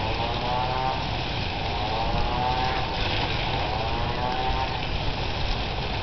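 Water spraying from a hose onto a nest of stinging insects in a shrub, a steady hiss. Under it, a motor-like hum rises and falls in pitch about three times.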